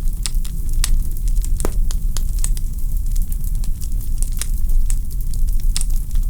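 Wood fire burning in a fireplace: logs crackling with many sharp, irregular pops over a low, steady rumble of flame.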